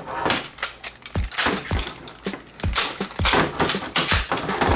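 Hard plastic parts of a Miniforce X transforming robot toy clicking, snapping and rattling as it is folded by hand into car form, with repeated low thumps about twice a second.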